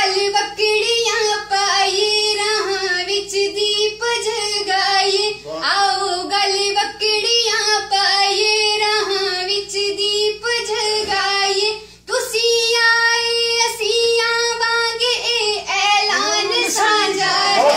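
A woman singing a Punjabi song solo in a high voice, holding long notes, with a short break for breath about twelve seconds in.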